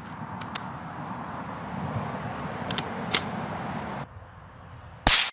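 .22 LR rifle shot, fired with Aguila Interceptor hyper-velocity ammunition, hitting a dog food can. The short, loud report comes near the end, after a stretch of steady outdoor background noise with a few faint clicks and one sharp crack about three seconds in.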